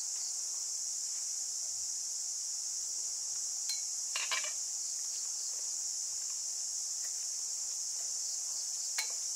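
Steady high-pitched drone of insects. Over it, a few light clinks of chopsticks and a metal pot lid against a cooking pot, about four seconds in and again near the end.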